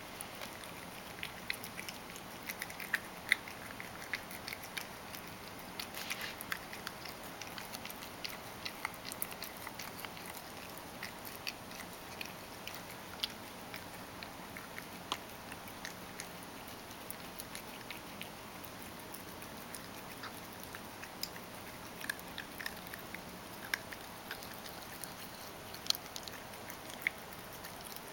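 Ragdoll cat eating crushed dry food softened with hot water: an irregular string of small wet chewing clicks and smacks, busiest in the first several seconds and again near the end.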